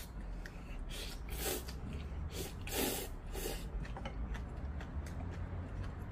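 A man slurping mouthfuls of ramen noodles: several short, airy slurps, the loudest about three seconds in.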